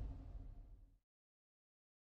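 The last of an intro music sting dying away, its low end lingering, then cutting off to dead silence about a second in.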